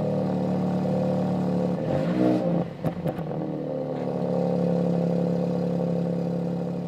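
Car engine of a 2017 Audi A3 running steadily after a restart on a freshly fitted battery, with a brief change in pitch about two seconds in and a few light clicks just after.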